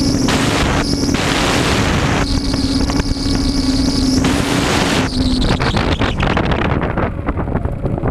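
Bixler RC airplane's electric motor and propeller whining at a steady pitch, broken several times by rushing wind over the onboard camera's microphone. About five and a half seconds in, the motor tone stops and only wind buffeting remains.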